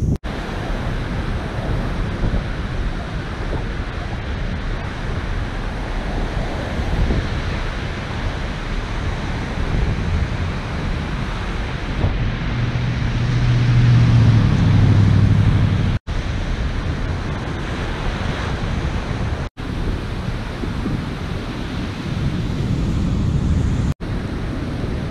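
Ocean surf breaking, with wind buffeting the microphone, broken by a few very short dropouts. Midway a low steady hum swells for about three seconds and dips slightly in pitch before it fades.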